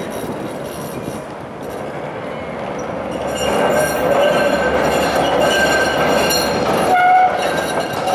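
Linke-Hofmann-Busch articulated tram rolling through a curve in street track, its wheels squealing in several long, steady high tones over a low rumble. It gets louder about three and a half seconds in as the tram comes closer, and the squeal jumps to a different pitch near the end.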